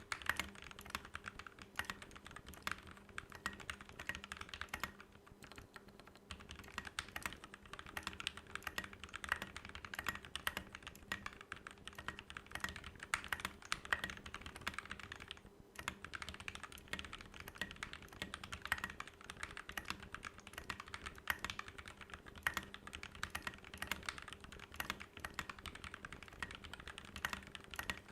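Mechanical keyboard with lubed Gateron Black KS-3 linear switches (Krytox 205g0) and Tai Hao keycaps being typed on continuously in a fast, steady stream of keystrokes, with a brief pause about fifteen seconds in.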